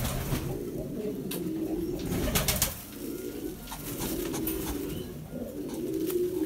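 Domestic pigeons cooing, a continuous low warbling coo with brief lulls, and a few sharp clicks scattered through it.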